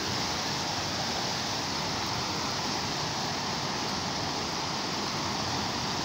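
Stream rushing over rocks and small cascades: a steady, even rush of water.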